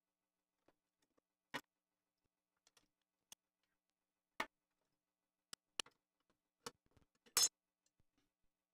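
Scattered small metallic clicks and taps from a precision screwdriver, screws and the metal case panels as a mini PC firewall appliance is taken apart: about seven sharp clicks with silence between, the loudest near the end.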